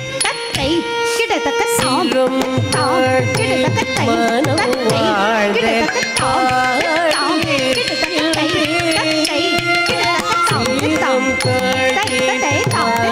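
Carnatic dance accompaniment for a Bharatanatyam Alarippu: a hand drum of the mridangam kind plays dense rhythmic strokes under a gliding, ornamented melody line over a steady drone.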